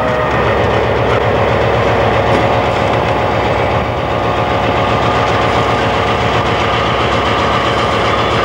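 CN diesel yard locomotive running with a steady low throb as it rolls past close by, its wheels and the cars behind it rumbling on the rails.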